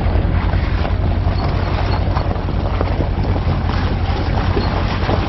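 Side-by-side utility vehicle's engine running with a steady low drone as it drives slowly along a gravel driveway.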